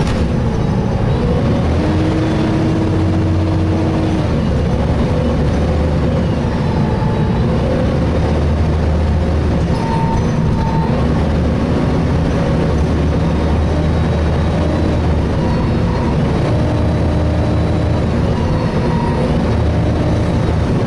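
Volvo B7TL double-decker bus heard from inside while under way: the engine and the radiator cooling fan run steadily, with road noise beneath. The pitch of the drone shifts a little now and then as the bus drives on.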